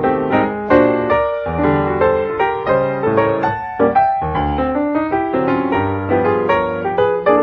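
Background piano music: a solo piano playing a flowing melody, its notes struck several times a second.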